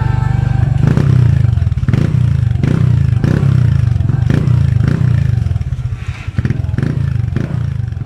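Honda Wave 110 single-cylinder four-stroke motorcycle running through an Apido V3 'chicken pipe' aftermarket exhaust after six months of use, a steady low exhaust note with a sharp tick or pop about once a second.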